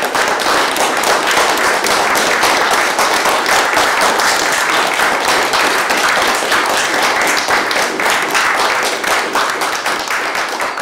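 Audience applauding, a dense run of hand claps that begins to die away near the end.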